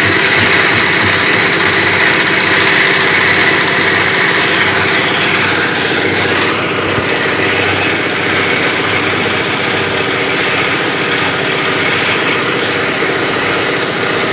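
An engine running steadily with a fast, even beat, loud and unbroken.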